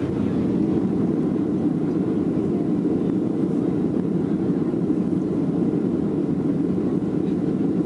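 Steady cabin noise of a Boeing 737-800 climbing out after takeoff: its CFM56-7B turbofan engines and the rush of air over the fuselage, heard from inside the passenger cabin as a low, even roar.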